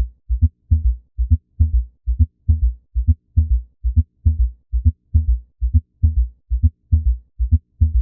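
Recorded heart sounds with an S3 and S4 gallop: each beat is a cluster of short, low thuds, the two extra sounds framing S1 and S2, repeating a little faster than once a second. This combination of extra heart sounds is often a sign of underlying pathology such as congestive heart failure.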